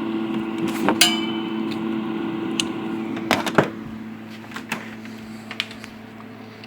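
A few sharp clicks, one with a short metallic ring, from hooking up the cable and working the HP 54542A oscilloscope. They sit over a steady electrical hum that drops about three and a half seconds in.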